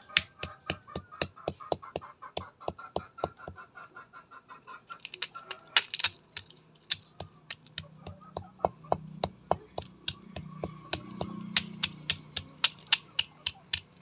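A hen's beak pecking at grain on hard dirt close by: a steady run of sharp taps, about three or four a second. A low drawn-out sound comes in during the second half.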